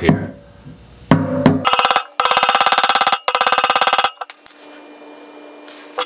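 Small hammer tapping rapidly on the key in a motorcycle fuel tank's filler-cap lock, trying to free a rust-seized lock, the metal tank ringing with each tap. A single knock about a second in, then two quick runs of many light taps, stopping about four seconds in.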